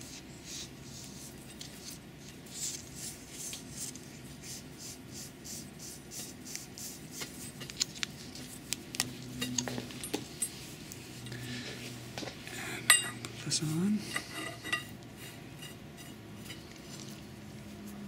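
Thread-seal tape pulled off its roll and wrapped round a stainless steel pipe thread with soft repeated rustles, then clinks and taps as the stainless pipe sections are handled and screwed together by hand, the sharpest clink about two-thirds of the way through.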